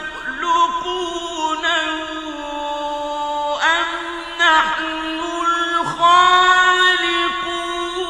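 Qur'an recitation in tajweed style: a single reciter's voice chanting long drawn-out melodic vowels that waver and glide between pitches, in a few phrases.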